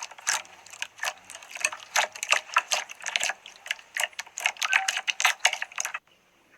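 Slime being squeezed and poked by hand, giving a dense run of irregular sticky clicks and small pops that cuts off suddenly near the end.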